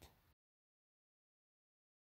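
Near silence: the sound track goes completely dead, with only a faint trace of the last spoken word fading out at the very start.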